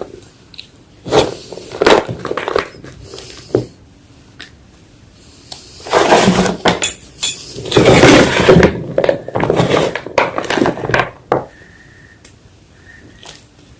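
Blocks of Reform gym chalk being crushed, crunching and crumbling in irregular bursts. The crunching is heaviest around the middle and stops about two-thirds of the way through.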